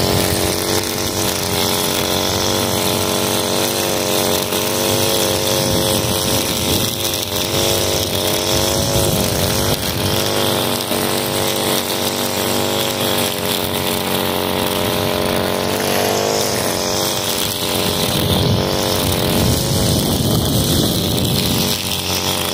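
Echo two-stroke gas string trimmer running at high speed, cutting thick, overgrown grass. Its engine note wavers slightly up and down as the line slices through the grass, and it drops off sharply at the very end.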